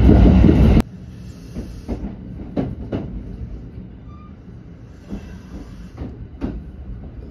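Kintetsu train rolling slowly into a station, heard from inside the car: a low rumble with wheels clacking over rail joints, often in pairs. A loud sound in the first second cuts off abruptly.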